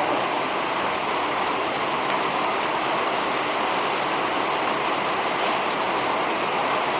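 Torrential rain falling, a steady, unbroken hiss of heavy downpour.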